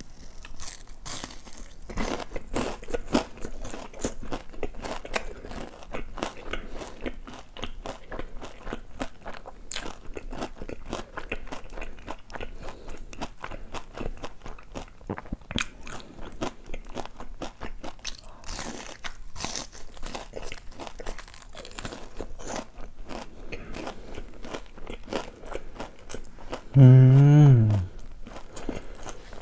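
Close-up crunching and chewing of a breaded, fried cheese pork cutlet: many small crisp crunches throughout, the cutlet a little dry and hardened. Near the end comes a loud, short hummed voice with a wavering pitch.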